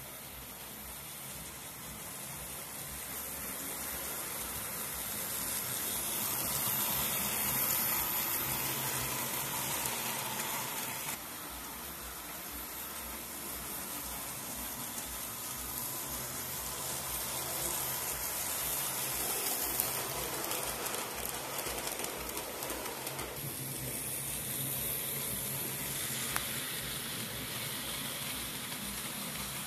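OO-gauge model train running on the layout's track: a steady rushing of the small electric motor and wheels on the rails that swells and eases off, with a couple of light clicks.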